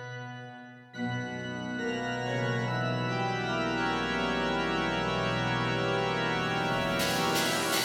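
Slow, held organ chords. The first chord fades away at the start, and a new chord comes in about a second later and holds. A hissy swell builds up near the end.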